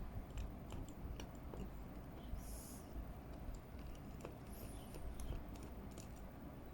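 Faint scattered clicks and taps of a small Phillips screwdriver working tiny screws out of a laptop's metal display bracket, with two short scraping hisses, about two and a half and four and a half seconds in.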